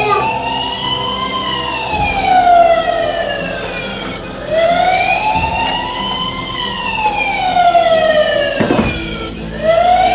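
Toy fire truck's electronic siren wailing: a slow rise and fall in pitch repeating about every five seconds, just over two cycles.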